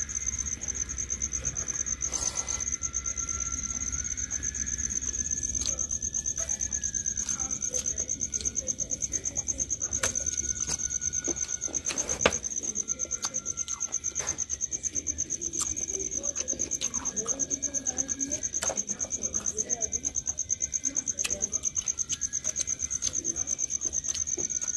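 Crickets trilling steadily on one high pulsing note, with occasional light clicks and taps from eating by hand off steel plates.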